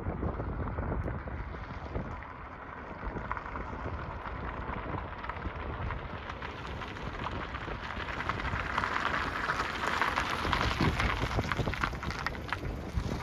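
Wind rushing over the microphone outdoors, a steady noise full of fine crackles that swells a little past the middle.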